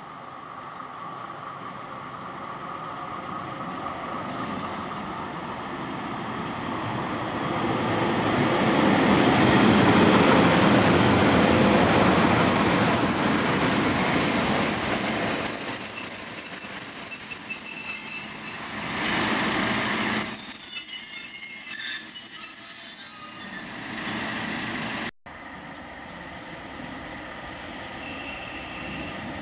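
Train approaching and running in, its rumble growing louder over about ten seconds, then a high steady squeal from the wheels. The sound cuts off abruptly near the end and a quieter rumble follows.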